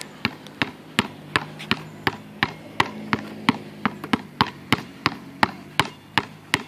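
Wilson basketball dribbled low and fast on a hard court, a steady run of sharp bounces about three a second.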